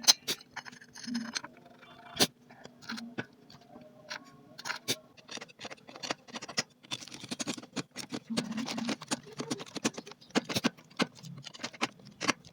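Irregular metallic clicks, taps and clinks of hand tools and small metal engine parts being handled during engine assembly, a few of them ringing briefly. The taps come thicker in the second half.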